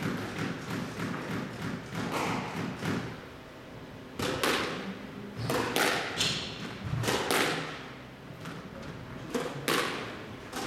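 Squash rally: the ball cracks off the rackets and the court walls in a run of sharp strikes, mostly in quick pairs, a racket hit followed closely by the ball meeting the wall.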